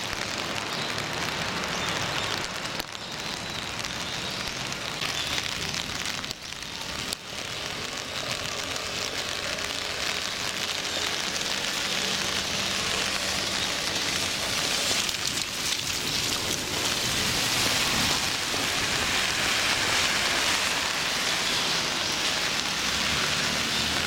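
Steady rain with the hiss of traffic on a wet road, growing louder in the second half.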